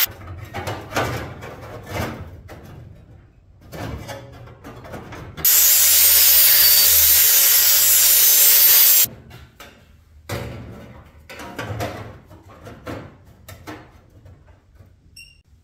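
Hand snips crunching through sheet metal in irregular strokes. About five seconds in, a DeWalt angle grinder with a cut-off wheel cuts the metal strip with a loud steady whine for about three and a half seconds, then stops abruptly. More irregular snipping strokes follow.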